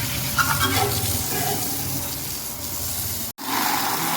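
Running water splashing over a motorcycle as it is washed, a steady hiss that cuts out abruptly a little after three seconds and comes back louder.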